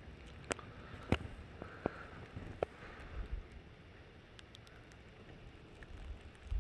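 Quiet outdoor ambience with four faint, sharp clicks in the first three seconds and a few fainter ticks later.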